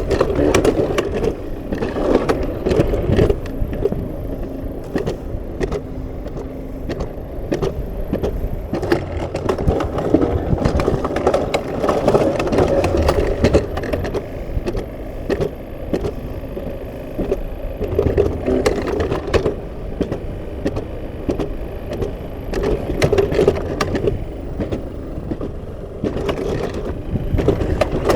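Alpine coaster sled running down its rails: the wheels rumble steadily, with rapid clicks and clacks from the track throughout.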